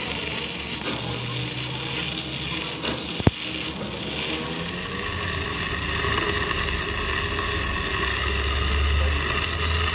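Electric arc welding crackling and hissing on the steel trunnion shaft, with a single sharp click a little over three seconds in. From about halfway the sound turns into the steady hiss of a gas torch flame heating the steel trunnion sleeve.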